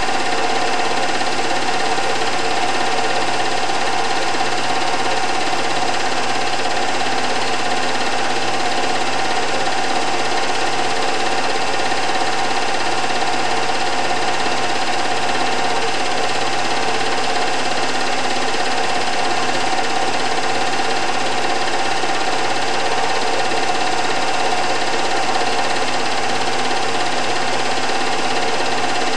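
Film projector running steadily: the fast, even clatter of its mechanism feeding film, with a constant hum on top.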